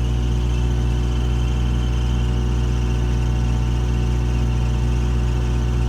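Caterpillar 304 mini excavator's diesel engine idling steadily, a deep even hum.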